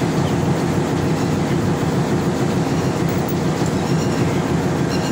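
Diesel locomotive engine idling steadily at close range.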